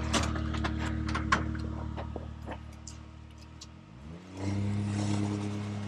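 Can-Am Maverick X3 side-by-side engine running steadily at low revs, with light clicks and clatter in the first couple of seconds, then revving up about four seconds in and holding a higher steady speed.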